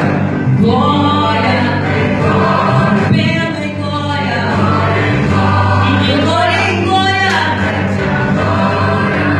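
Gospel choir music: voices singing over steady, held low backing chords.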